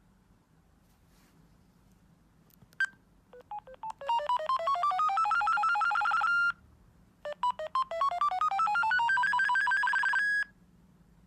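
Bird S1150 mobile phone playing a ringtone through its loudspeaker: fast runs of rising electronic notes for about three seconds, breaking off, then a similar run after a short gap. A single short beep comes just before the ringtone starts.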